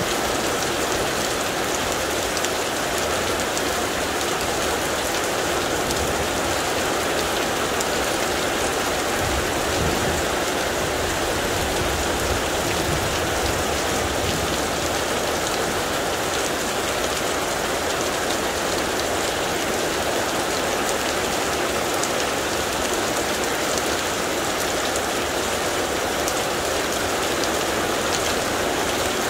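Heavy thunderstorm rain pouring down steadily, a constant even hiss of the downpour with no letup.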